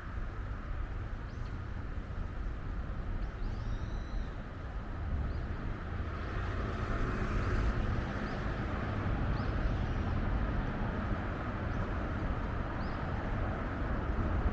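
Steady outdoor rumble and hiss, with short faint bird chirps every second or two.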